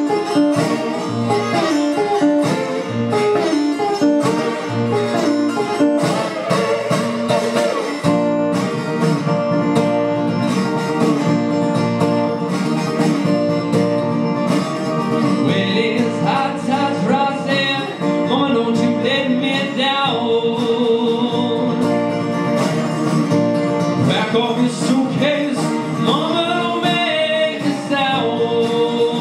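Steel-string acoustic guitar played solo in an instrumental break of the song, with a man's wordless singing joining in from about halfway through.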